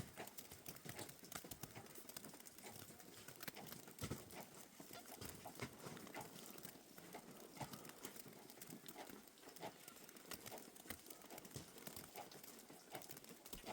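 Faint, irregular knocks and clicks, scattered unevenly through the stretch.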